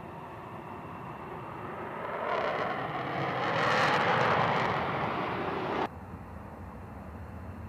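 F-15E Strike Eagle's twin jet engines on full afterburner during takeoff, building from about 2 s and loudest as it lifts off. The sound cuts off abruptly near 6 s and is replaced by a quieter, steady jet noise from a C-17's four turbofan engines on the runway.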